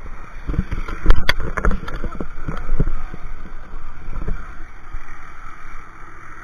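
Irregular thumps, knocks and splashes of water against an action camera riding an inflatable banana boat as it bounces over the waves under tow, over the steady drone of the towing motorboat. The hardest knocks come about a second in and settle after about five seconds.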